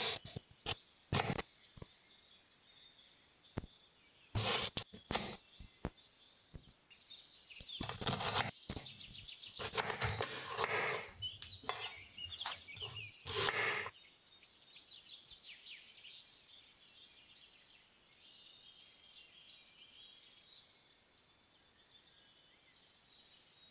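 Chef's knife cutting through a raw carrot on a wooden cutting board: irregular crunching slices and knocks of the blade on the board. They stop about fourteen seconds in, leaving only faint high background sounds.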